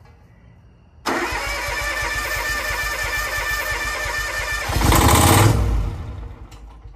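Starter cranking the Kawasaki FD731V liquid-cooled V-twin engine of a Ferris zero-turn mower, starting about a second in; near the end it fires loudly for about a second on a shot of ether, then dies away, a sign that the engine is not getting any fuel.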